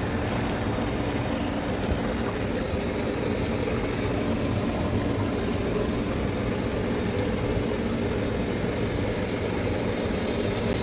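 Jacuzzi tub jets running: the pump motor's steady hum under the noise of water churning and bubbling in the tub.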